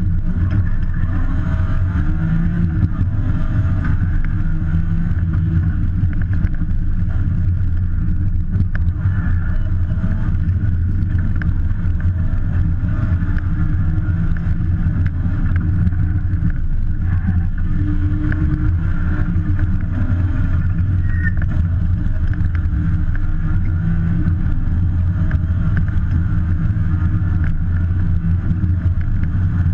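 BMW M3 rally car's engine heard from inside the stripped cockpit, running hard at speed with a loud, steady drone that rises and dips a little in pitch as the driver works the throttle through the stage.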